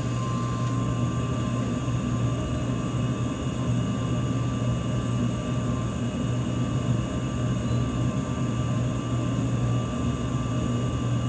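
Steady low hum of running dental-clinic equipment, with faint steady high tones above it.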